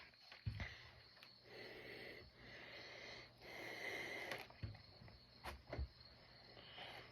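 Faint hard breathing through the nose, two long breaths about two seconds apart, with a few soft low thumps in the gaps.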